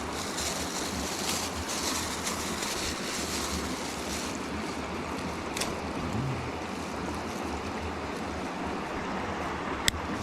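Steady rush of flowing river water around a wading angler, with a low unsteady rumble of wind on the microphone. A single sharp click comes near the end.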